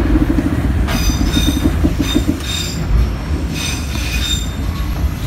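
Train carriage running on a curve, heard from inside: a steady low rumble, with the wheels squealing high and thin several times as their flanges bind on the curving rails.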